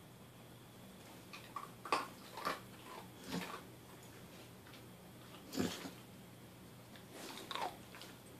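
Pit bull making several short snuffling and whimpering noises, with a brief whine that falls in pitch near the end.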